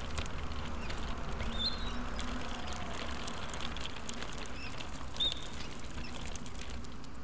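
Restaurant room sound: a steady low hum with scattered light clicks and clinks, and a couple of brief high squeaks.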